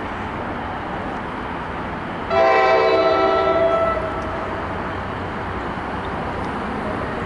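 Approaching commuter train sounding its horn: one multi-tone blast of about a second and a half, a little over two seconds in, over a steady background noise.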